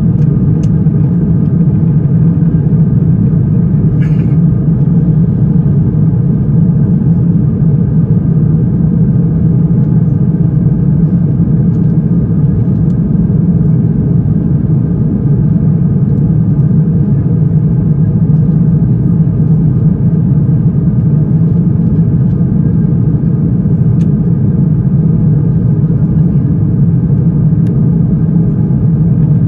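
Steady, loud in-flight cabin drone of an Airbus A350-1000 heard from an economy seat: the engine and airflow noise of the airliner in flight.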